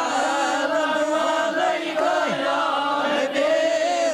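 A group of voices chanting together in a slow devotional chant, with long, wavering held notes.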